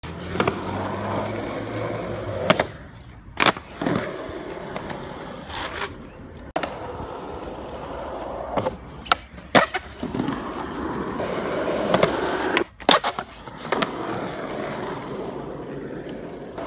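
Skateboard wheels rolling over rough asphalt with a steady grinding rumble. Sharp clacks of the board's tail popping, the board hitting the ground and the wheels landing come again and again, about a dozen through the stretch.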